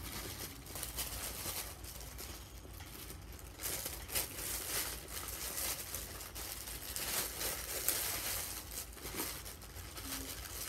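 Clear plastic packaging bag crinkling and rustling as it is handled and opened, on and off, busiest in the middle stretch.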